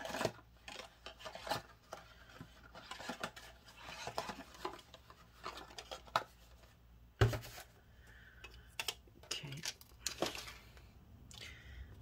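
Epoxy tubes and small tools being picked up and put away on a workbench: scattered light clicks, rattles and rubbing of small hard objects, with one sharper knock about seven seconds in.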